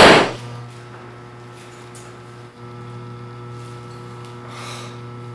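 A single loud revolver gunshot right at the start, dying away within about half a second, followed by a steady low hum.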